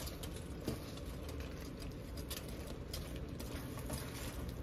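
Faint stirring and folding of a thick, cheesy dip in a skillet on the stove, with a soft bubbling sizzle and many small irregular clicks and ticks from the spoon and the bubbling mixture.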